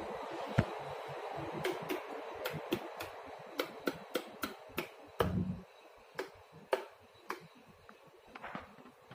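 Footsteps on a hard marble floor: a run of sharp, irregular clicks, about two or three a second, thinning out after about five seconds, with a low thump near the middle. A steady hiss runs under the first half.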